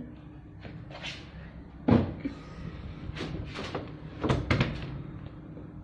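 Knocks and clunks of a plastic liquid-detergent bottle and the top-loading washing machine being handled, the loudest about two seconds in, over a low steady hum.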